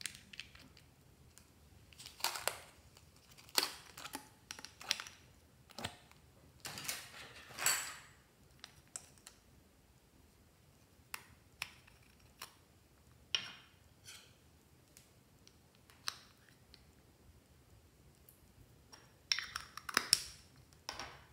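Small plastic cosmetic containers handled in the fingers: scattered sharp plastic clicks and short scrapes, with a quick run of clicks near the end.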